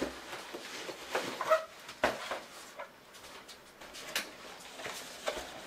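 Rustling and scattered light knocks of hands rummaging through a fabric backpack and pulling out a folder.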